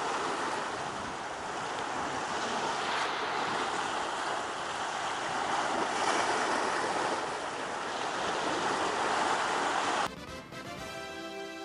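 Sea swell washing and breaking against a rocky shore: a steady rush that swells and eases. About ten seconds in it cuts off suddenly, and a short ringing musical tone fades away.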